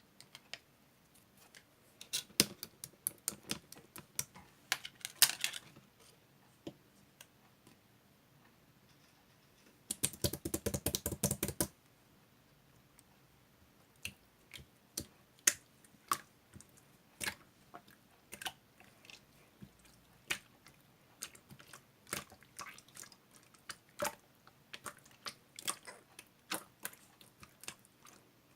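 Irregular sharp clicks and taps, with a fast run of rapid clicks about ten seconds in.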